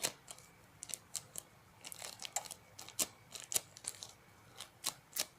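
A homemade squishy being handled and squeezed, making irregular sharp crinkling clicks.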